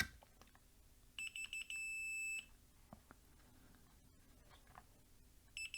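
Multimeter continuity beeper: a few quick stuttering beeps settling into a steady high beep for about a second as the probes make contact across the charger's plug fuse, signalling a closed circuit, so the fuse is good. A brief beep sounds again near the end.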